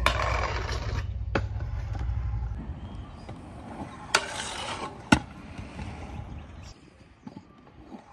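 Stunt scooter wheels rolling over rough concrete with a low rumble that fades out about two and a half seconds in. Sharp clacks follow as the scooter hits a metal rail, with a brief grinding scrape, the loudest clack about five seconds in.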